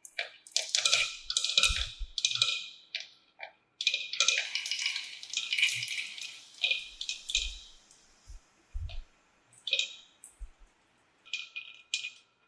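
Marbles clicking and rolling along a plastic marble-run track: a string of clattering runs, with a longer continuous roll about four seconds in.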